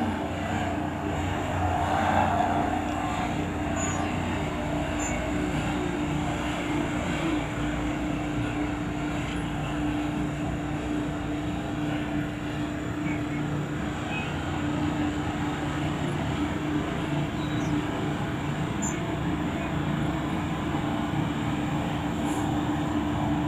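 Heavy vehicle engine running steadily, with an even hum.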